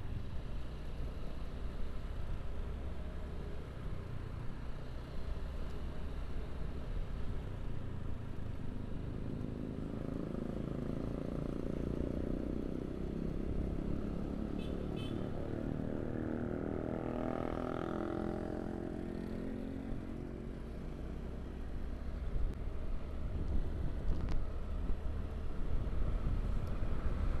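Motorcycle riding along a road: a steady low engine and road rumble. In the middle, a louder engine sound swells up and fades away, as when a vehicle passes or the engine is pulled harder.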